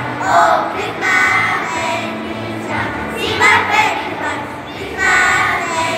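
A children's choir singing a Christmas song together in short phrases with brief gaps between them.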